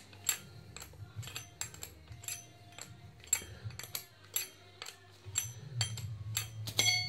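Metal clicks and clinks of a hand wrench working the bolts of a Peugeot Boxer gear-type oil pump, irregular, a few a second, with a louder cluster near the end.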